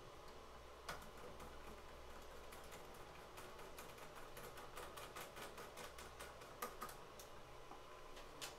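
Faint, quick clicks and taps of 3D-printed plastic parts being handled and fitted by hand on a miniature Thunderbolt siren. A few louder single clicks stand out about a second in, about two-thirds through, and near the end.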